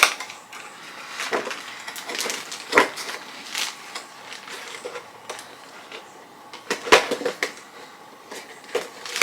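Unboxing items and their packaging being handled: rustling and crinkling with scattered light clicks, and a sharper knock about three seconds in and again about seven seconds in as things are set down.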